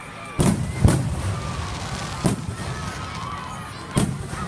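Aerial fireworks bursting: four sharp booms, the first two about half a second apart, then one more about two seconds in and another near the end.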